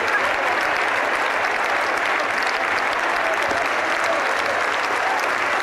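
Football stadium crowd cheering and clapping steadily after a home goal, with a few voices shouting above it.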